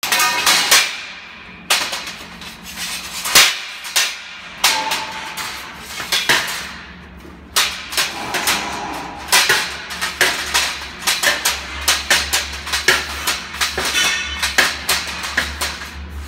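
Square steel tube pickets and rails clanking against each other and the steel jig as they are laid in place: many sharp metallic knocks at uneven intervals, some ringing briefly. A low steady hum runs underneath in the second half.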